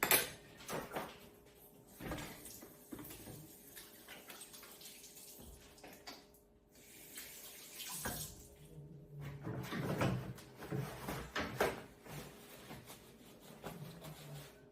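A spoon stirring a thick, wet bread mixture of oats, eggs and flaxseed in a bowl: irregular scraping strokes, louder from about eight seconds in.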